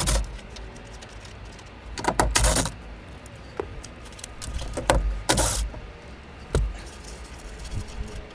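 Hand tools on the mirror's mounting bolts on a truck door: short bursts of metallic ratcheting and rattling, about four times, with a sharp knock near the middle.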